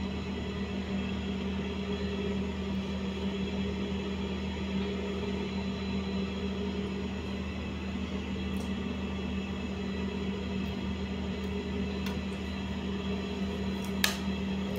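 A steady low electrical or mechanical hum, unchanging throughout, with a single sharp click near the end.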